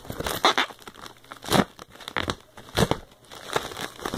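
Plastic packaging crinkling and rustling in a run of short bursts as it is handled and pulled apart. The loudest crinkles come about a second and a half in and again near three seconds.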